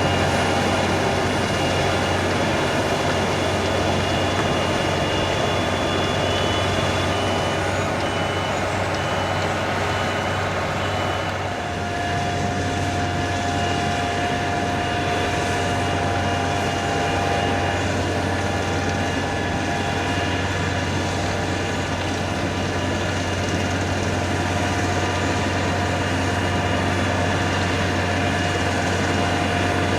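A heavy vehicle, plausibly a truck, running steadily, with a strong low hum and steady higher tones. The mix of tones changes abruptly about twelve seconds in.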